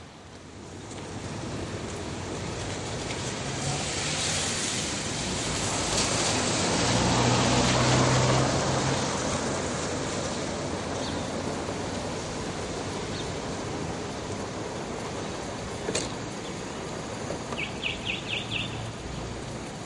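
ALCo FPD-9 diesel locomotive hauling a train past, its engine and wheel noise swelling to a peak about eight seconds in and then slowly fading as it draws away. A sharp click and a quick run of high chirps come near the end.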